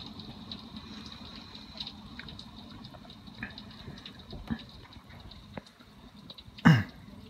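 Steady rain with light hail, scattered small ticks of hailstones striking hard surfaces, and one loud short thump near the end. A faint steady high tone runs underneath.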